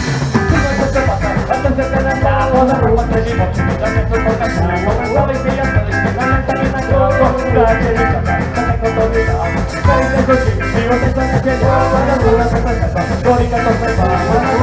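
Live ska-punk band playing loudly: drum kit with a fast steady cymbal beat, electric guitars and saxophone.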